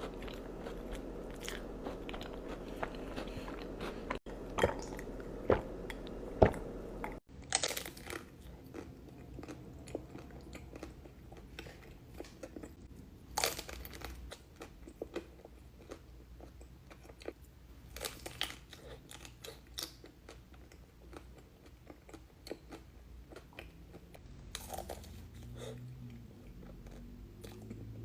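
Close-miked eating of crunchy desserts: sharp bites and crunches followed by chewing. The background changes abruptly twice as one clip gives way to another, and the loudest bites come about four to seven seconds in.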